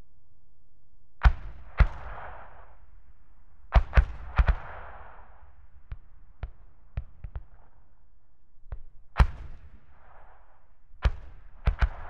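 81mm medium mortar fire: an irregular string of sharp reports, several in quick pairs, the loudest each followed by a short echoing rumble, with fainter reports in between.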